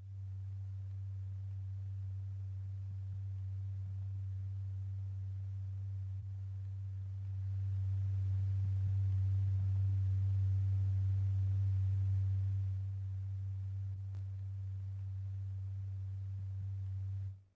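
Steady low sine tone of about 100 Hz, the note that drives the vibrating diaphragm in a cymatics experiment. It swells louder for about five seconds midway, a rise in the tone's amplitude that shakes the powder harder, then drops back before cutting off sharply.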